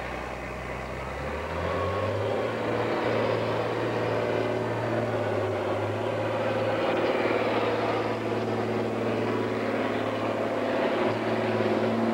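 John Deere farm tractor's diesel engine revving up about a second and a half in, then running steady under heavy load as it pulls the weight-transfer sled.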